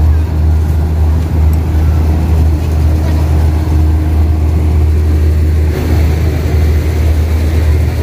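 Steady, loud low rumble under a noisy hiss.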